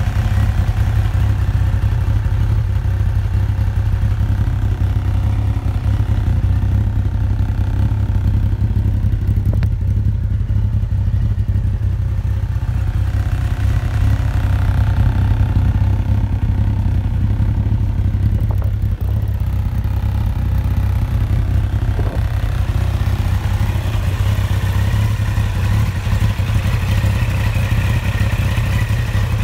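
Yamaha XJR1300's air-cooled inline-four engine idling steadily through aftermarket exhausts, a low, even sound.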